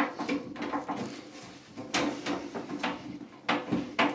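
Phillips screwdriver driving a screw through a cash drawer mounting bracket into the steel base of the drawer: a series of irregular clicks and knocks as the screw is turned and the parts shift.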